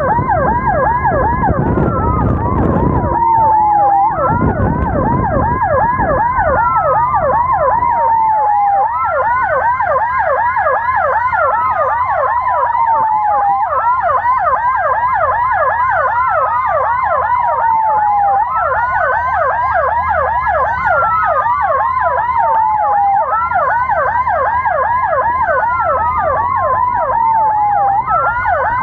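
Ambulance electronic siren sounding two patterns at once: a rapid warbling yelp and a slower wail that rises, holds and falls about every five seconds. Two louder low blasts sound over it in the first six seconds.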